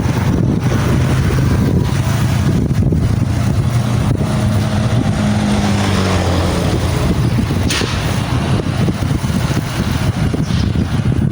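Wind buffeting the microphone as a constant low rumble, with a motor's hum swelling and fading from about four to seven seconds in.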